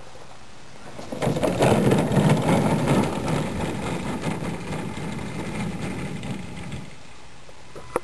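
Cirrus glider rolling away over the grass at the start of its launch: a rushing, rattling rumble that comes in suddenly about a second in, is loudest briefly, then fades and stops near the end.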